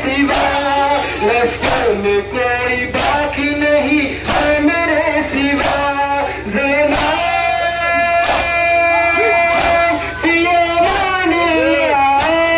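Men chanting a nauha, a Shia lament, in chorus, with long held notes. Over it the crowd does matam, hands striking chests together in a slow, even beat about once every second and a bit.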